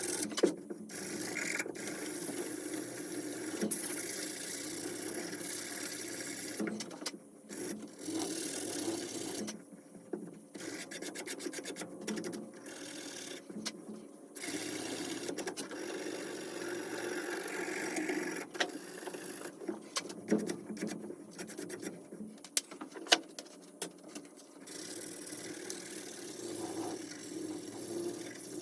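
Sandpaper being rubbed back and forth by hand over a burl wood knife handle, in stretches with short pauses and a few sharp knocks.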